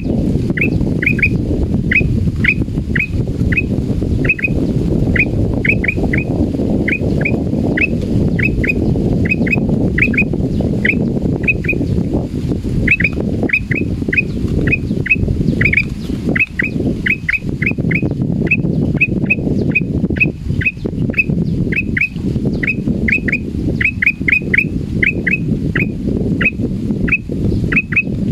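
Male black-crested bulbul giving a long series of short, sharp calls, each falling in pitch, about two to three a second and often in pairs or threes; the keeper takes this calling for fear. A steady low rumble runs underneath.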